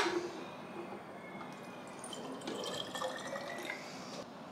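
Water pouring from a kettle into a baby bottle, a soft steady trickle as the bottle fills.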